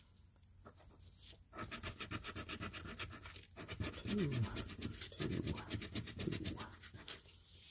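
A coin scraping the latex coating off a paper scratch-off lottery ticket in rapid, even back-and-forth strokes, starting about a second and a half in.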